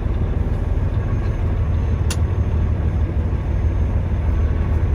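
Semi-truck's diesel engine running, heard from inside the cab as a steady low rumble, with a single brief click about two seconds in.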